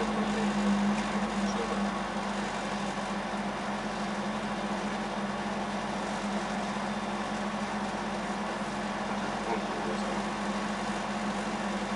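Volvo 142S rally car's four-cylinder engine idling steadily, heard from inside the cabin.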